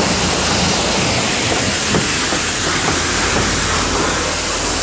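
High-pressure wand at a self-serve car wash spraying water against the side of a car: a loud, steady hiss with a low hum underneath.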